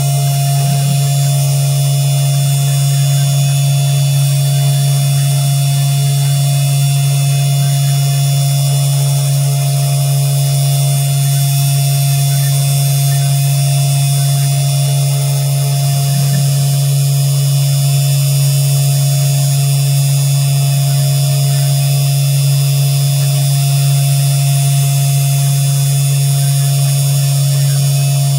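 Mini CNC 3018 Pro's brushed DC spindle motor running at steady speed, a loud even hum with a high whine over it, while the machine engraves lettering into soft modelling clay.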